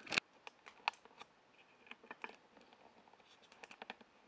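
Faint scattered clicks and light taps of hands handling a spark gap tester as it is fitted between the plug lead and the spark plug. The sharpest click comes right at the start, with small clusters of clicks about two seconds in and again near the end.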